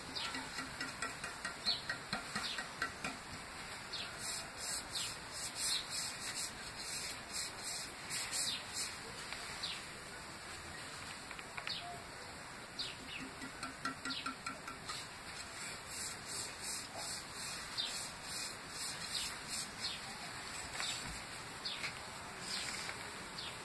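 Fingertips rubbing wet paint across a stretched canvas in quick back-and-forth strokes: bursts of short, scratchy squeaks, easing off around ten seconds in and again near twenty.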